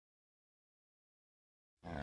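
Near silence, until a cow's moo begins just before the end.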